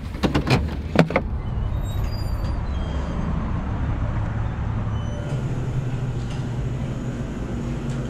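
A pickup's seatbelt being unbuckled and its door: a few sharp clicks and knocks in the first second, the loudest about a second in. Then a steady low hum, joined by a steady low tone from about five seconds in.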